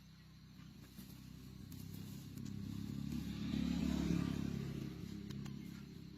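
A motor vehicle's engine passing by: a steady low engine sound that grows louder to a peak about four seconds in, then fades away.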